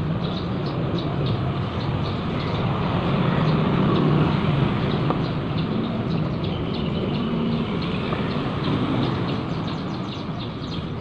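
A steady low rumbling noise fills the background. Over it come faint, irregular taps of a knife slicing shallots on a plastic cutting board.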